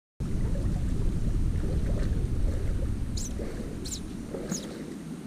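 Low rushing noise of a shallow rocky river, slowly fading, with a small bird giving three short chirps between about three and four and a half seconds in.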